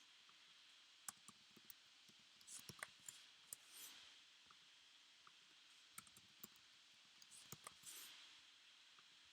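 Faint, scattered clicks of a computer mouse and keyboard, some single and some in short clusters, over quiet room tone.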